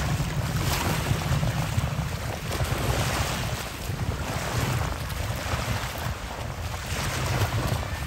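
Wind buffeting the microphone with a heavy low rumble, over the hiss of small waves washing on a sandy shore that swells and fades every second or two.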